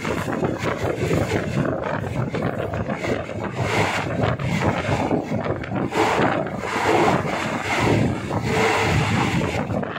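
Passenger train in motion heard from beside an open carriage window: a dense, steady rumble of the carriage running along the track, mixed with wind rushing past.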